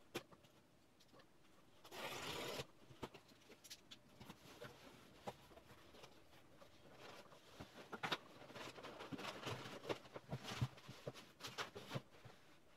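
A utility knife slitting the packing tape on a cardboard shipping box, with one short scraping rip about two seconds in. Then cardboard flaps and an inner carton are handled, with scattered light rustles and knocks.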